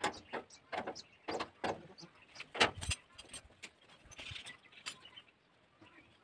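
Irregular knocks and clatters from hands working on a parked threshing machine, the sharpest about two and a half seconds in.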